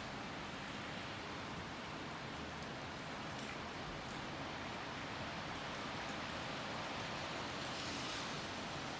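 Steady rain falling, an even hiss with faint scattered drop ticks, swelling slightly near the end.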